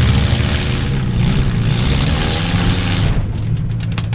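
Demolition derby car engines revving hard in surges, the pitch rising and falling, with a rapid run of sharp clicks and knocks near the end.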